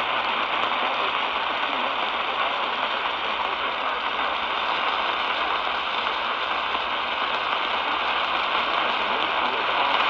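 Steady hiss of AM static from a portable medium-wave radio tuned to 1260 kHz, with no programme audio coming through.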